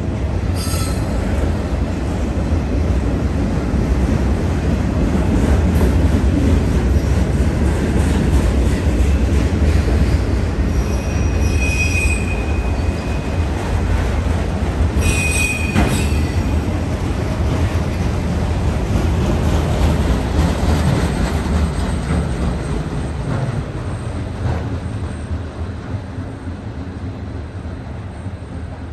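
Freight train of loaded auto rack cars rolling past, a steady rumble of wheels on rail with brief high wheel squeals: a short one about a second in and two more around the middle. The rumble eases off near the end.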